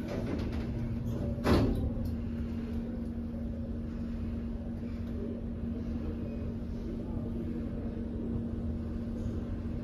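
Schindler 5500 traction elevator car in motion: a steady low hum over a rumble, with one brief thump about a second and a half in.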